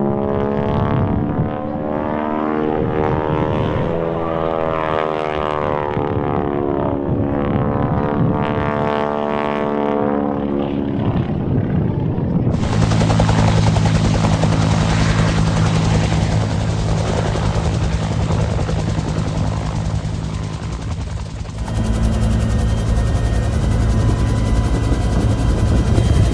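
Propeller aircraft engines in several shots. First an engine note whose pitch rises and then falls over several seconds. Then, after abrupt cuts about halfway and again near the end, a close, steady engine drone with a strong low hum.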